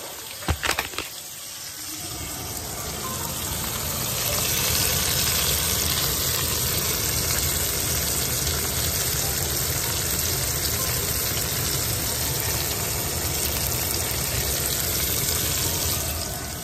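Ribeye steak sizzling in hot fat in a stainless steel frying pan, an even hiss that grows louder over the first few seconds, holds steady, and drops back near the end. A few sharp clicks about half a second in.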